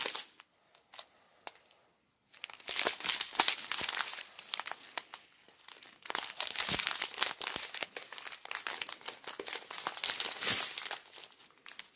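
Clear plastic bags of diamond painting drills crinkling and rustling as they are handled. The handling starts about two seconds in, after a short stretch of near silence, and goes on as irregular crackling.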